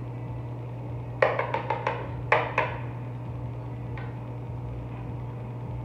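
Serving utensils knocking against a wooden salad bowl while the salad is tossed and tasted: a quick run of about five sharp clacks about a second in, two more right after, and a faint one later, over a steady low hum.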